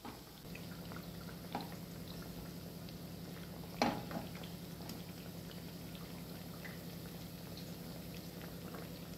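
Sesame-coated anarsa deep-frying in a kadhai of oil over a low-to-medium flame, a soft steady bubbling under a low hum. A slotted metal spoon turns them, knocking against the pan a few times, most sharply about four seconds in.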